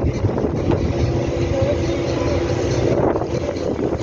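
Tour boat under way: its engine gives a steady low drone and hum, mixed with wind and water noise.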